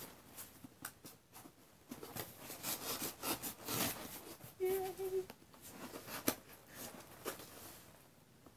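Pocket knife cutting into the taped seams of a cardboard box: irregular scratchy scrapes, rustles and small clicks, with one sharper click a little past the middle.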